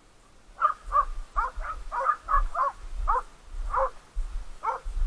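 Crows cawing: a quick series of about a dozen short caws.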